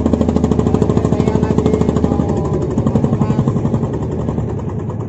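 Fishing boat's inboard engine running with a rapid, even thumping beat, about six a second, that eases a little near the end.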